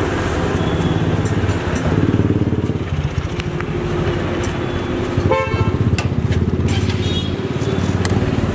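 Road traffic running close by, led by a motorcycle engine, with a short horn toot about five seconds in. A few light metallic clinks from a ladle on steel food pots.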